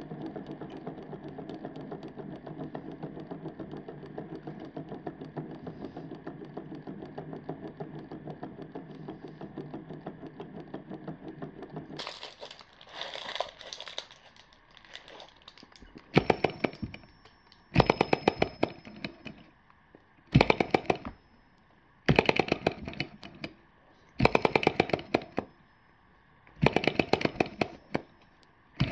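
A small tabletop model engine running with a steady hum. About twelve seconds in, the sound switches to a second model engine with an aluminium flywheel. It runs in spurts: bursts of rapid, even clicking about a second long, every two seconds or so, with near silence between.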